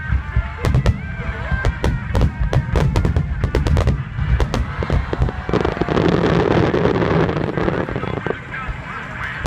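Fireworks display: a string of sharp bangs from shells bursting, with a dense crackling spell in the middle, over background music.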